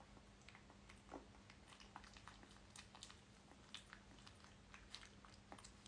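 Near silence: faint scattered clicks over a low steady hum.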